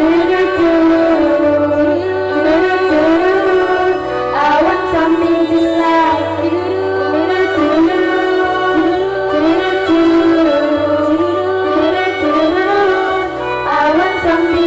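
School girls' choir singing a song into microphones through stage speakers, over an instrumental accompaniment with sustained bass notes.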